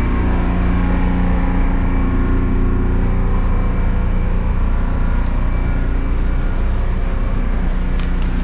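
Loud, steady running noise of a moving diesel-hauled passenger train heard inside the car: a low drone with several steady hums over it. Two light clicks near the end.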